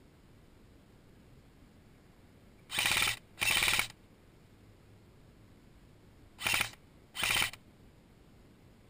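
Paintball guns firing in rapid bursts: two pairs of short volleys, each about half a second of quick shots, the second pair about three and a half seconds after the first.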